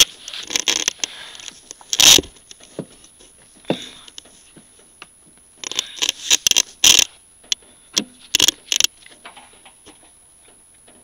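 Handling noise inside a furnace cabinet: scattered scrapes, rustles and light clicks, in clusters about 2 seconds in, around 6 to 7 seconds, and again near 9 seconds.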